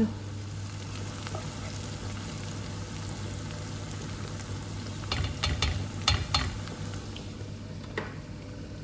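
Chopped onion frying in a pan with a steady sizzle. A few sharp clicks and knocks come about five to six and a half seconds in, and one more near the end.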